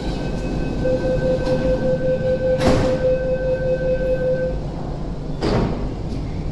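Door-closing warning tone of an MTR Tuen Ma Line C-train and platform screen doors, sounding for about four seconds, broken by two short bursts of noise as the doors shut and the train gets ready to leave. Over a steady low rumble the train starts to pull out near the end.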